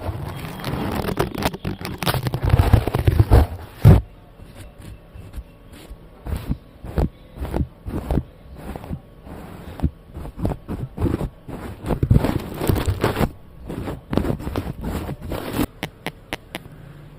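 Close-miked ASMR scratching and brushing strokes on a microphone: a dense run of scratching for about the first four seconds, then separate quick strokes and taps.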